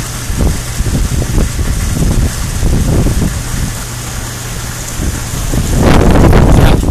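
Storm wind gusting and buffeting the microphone over a steady hiss of heavy rain. The strongest gust comes near the end.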